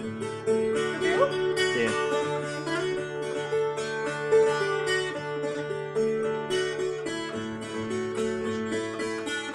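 Viola caipira being played: a continuous run of plucked notes over steady ringing low notes, with a few sliding notes between about one and two seconds in.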